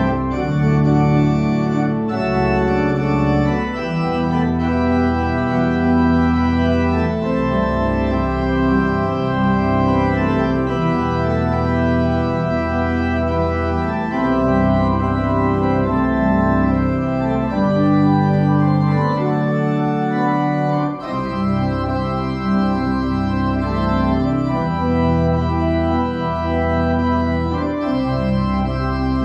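Organ playing slow, held chords that change every second or two, with a short drop in the bass a little past two-thirds of the way through.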